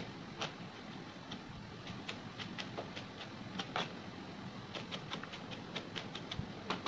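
Kitchen knife mincing garlic on a cutting board: a string of light, irregular chopping knocks, a few a second, quickening into a faster run of chops about two thirds of the way through.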